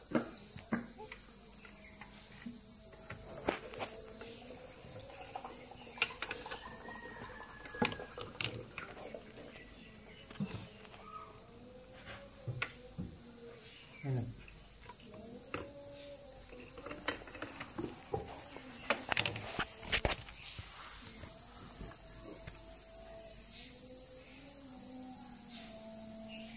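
A steady high-pitched insect chorus, with faint voices in the background and occasional sharp knocks.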